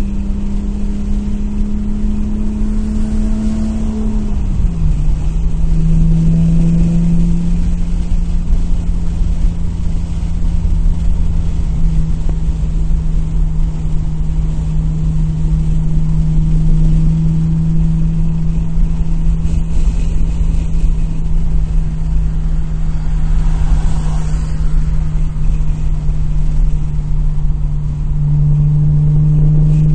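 Nissan Maxima V6 idling with a steady, even drone. About four seconds in its note drops slightly, then settles at a lower idle. The idle has a slight misfire, which the owner is checking on the fuel trim monitor.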